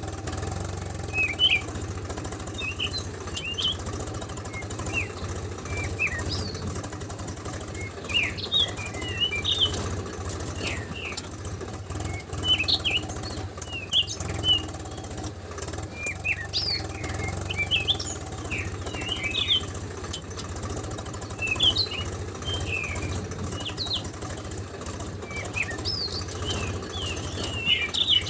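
Small birds chirping: many short, quick chirps in clusters every second or two, over a steady low hum.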